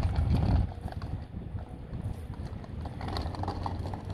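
Crunching and crackling of a child's bicycle tyres and training wheels rolling over a gravel-and-dirt driveway, with footsteps walking alongside. A low rumble sits under it for the first half second, then the crackle carries on at a lower, even level.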